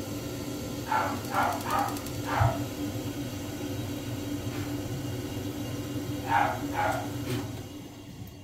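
A dog barking in two short runs, four barks and then two more, over a steady low hum.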